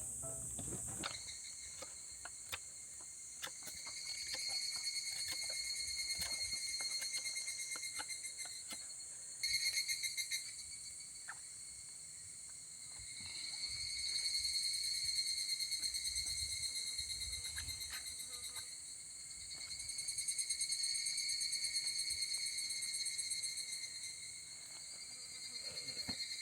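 Insects singing in a steady pulsing chirr that swells and fades in slow waves, with a few faint taps.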